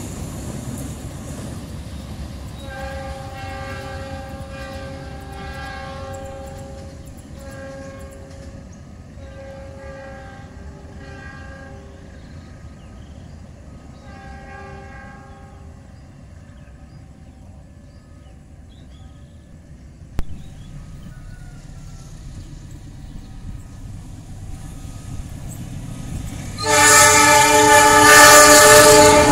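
A passing freight train's rumble fades at the start. Then a diesel locomotive's multi-tone air horn sounds in a series of short and longer blasts in the distance. About 27 seconds in, the approaching CC206 locomotive's horn gives a much louder, long blast up close.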